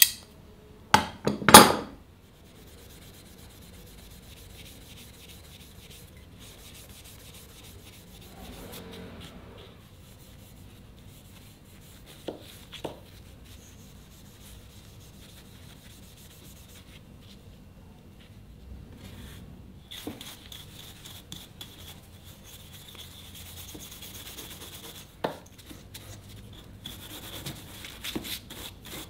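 Hand rubbing on wood, low and steady, with a few sharp knocks just after the start and single clicks later on.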